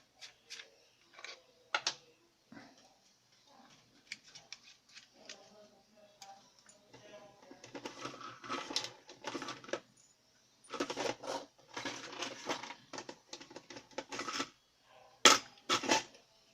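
Hands handling packaging and small metal router bits: irregular clicks and rattles that come in denser clusters partway through, with two loud clicks near the end.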